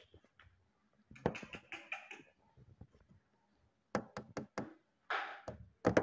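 Indian ringneck parrot: a short burst of soft chatter about a second in, then a quick run of about five sharp taps around four seconds, a brief rasping squawk just after five seconds, and two more taps at the end.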